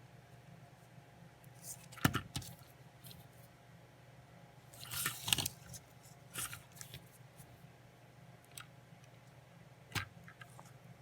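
Light handling noises: a few sharp clicks and a short rustling scrape as a small die-cast toy car is picked up, turned and set down. A low steady hum lies underneath.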